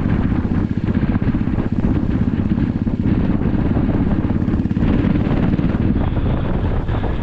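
Royal Enfield motorcycle's single-cylinder engine running steadily under way, a fast, even beat of exhaust pulses.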